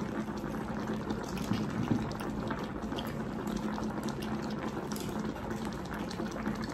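Chicken hotpot broth bubbling at a steady boil in its pot, with many small pops of bursting bubbles.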